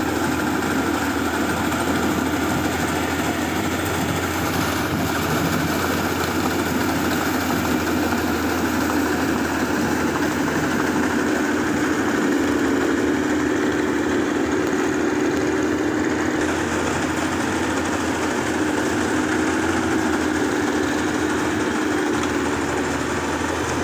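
Rice combine harvester running steadily as it cuts a standing rice crop, a constant even engine hum.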